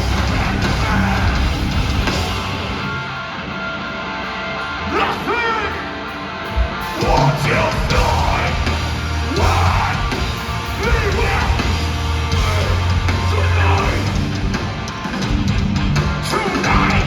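Live metalcore band playing: distorted guitars, bass and drums under a vocalist's sung and yelled vocal lines.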